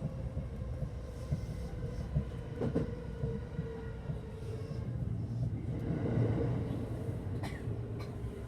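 JR West 225 series electric train running on rails, heard from inside at the front: a steady low rumble with a faint steady hum and a few sharp clicks of wheels over the rail joints.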